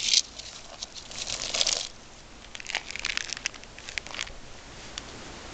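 A shot rattlesnake squirming on a gravelly road: short, irregular bursts of hissy rustling and scraping, loudest at the start and about a second and a half in, with a looser run of bursts around three to four seconds in.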